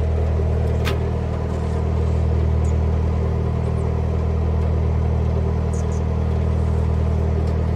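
Narrowboat diesel engine running steadily at cruising speed, an even low hum with a few brief, faint high chirps over it.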